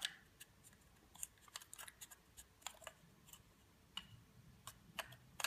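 Faint, irregular small clicks and light scrapes of a camera lens being fitted by hand onto a lens mount adapter ring, the mount parts knocking and sliding as they are lined up.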